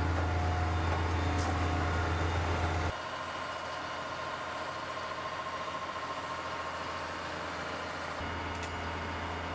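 Heavy truck engine running steadily with a deep hum; about three seconds in the sound drops abruptly to a quieter, thinner engine sound, and the deep hum returns near the end.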